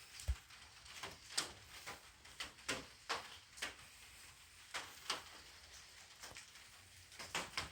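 A string of light, irregular clicks and knocks, about one or two a second, with a quiet room tone between them.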